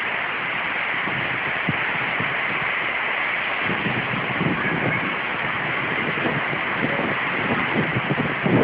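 Rain falling steadily in a dense, even hiss.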